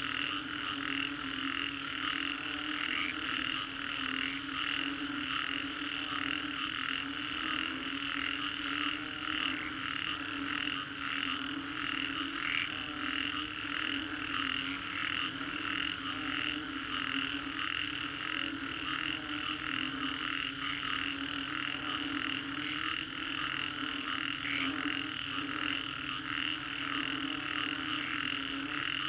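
Dense chorus of many frogs calling continuously after a rainstorm: a high, rapidly pulsing layer of overlapping calls over a steady low hum.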